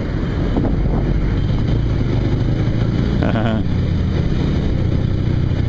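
Kawasaki cruiser motorcycle's engine running steadily while riding slowly in city traffic, with a constant low rumble. A brief wavering higher-pitched sound cuts in about three seconds in.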